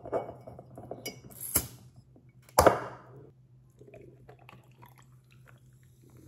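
Dishes and utensils clinking and knocking: several sharp clinks in the first three seconds, the loudest about two and a half seconds in with a short ring after it, then a few faint taps, over a steady low hum.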